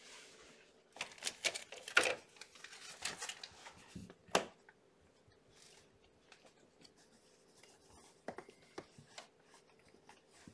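Scattered clicks, rattles and rustling as a wire kennel is reached into and a hand moves over the blanket among kittens, busiest in the first four seconds with a sharp click a little after four seconds, then a few lighter clicks later. A faint steady low hum runs underneath.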